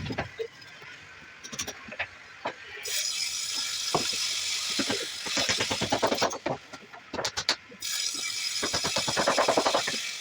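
Scattered sharp knocks, then two bouts of rapid rattling clicks, the second near the end.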